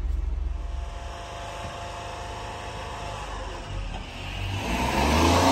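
Small engine of a 1992 Honda Acty kei truck running at idle with a steady low hum. About four and a half seconds in, the sound swells louder as the truck drives off, engine pulling and tyres on pavement.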